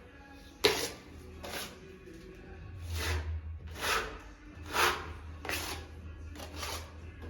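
Thick plaster mix being thrown and spread over pipes with a trowel: a series of short scraping swishes, about one a second, with a sharp click a little under a second in.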